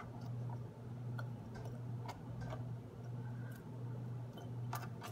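Faint light clicks as carrot slices drop into a glass mason jar, a handful of scattered taps, over a low background hum that swells and dips a little more than once a second.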